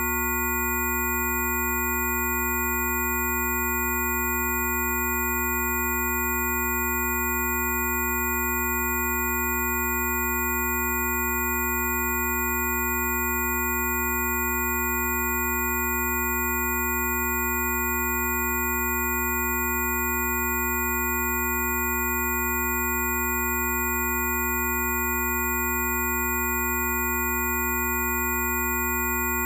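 Electronically generated sine tones, several sounding together without change: a low hum under middle and very high-pitched tones. This is a Rife frequency set for cough, as played in bioresonance treatment tracks.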